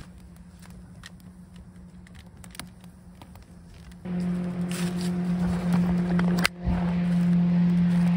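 Wood fire crackling with sparse pops over a faint steady hum. About halfway through, a loud motor drone at one fixed pitch takes over and drowns out the fire.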